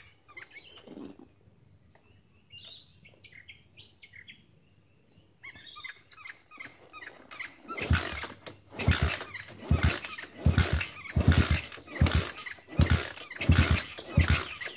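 Pit bike engine being kick-started, sputtering and firing in loud uneven bursts about twice a second from about eight seconds in, primed with fuel poured straight into the carburettor.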